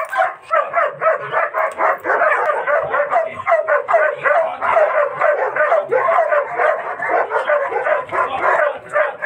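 Dog barking fast and without pause, about three or four barks a second: the agitated barking of a leashed dog being worked up against a decoy in protection training.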